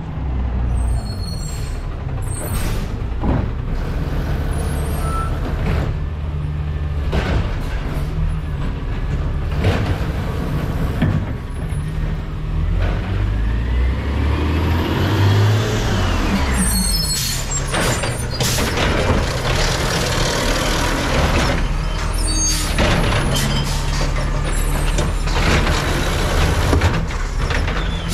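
Automated side-loader garbage truck pulling up to a curbside cart: its diesel engine runs throughout, rising and then falling in pitch about halfway through, with repeated air-brake hisses and clanks.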